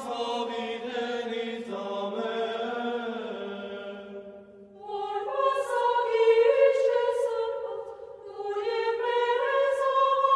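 Sacred vocal chant sung by several voices as background music, in long sustained notes. A lower part fades out about four seconds in, and higher, louder voices come in a second later.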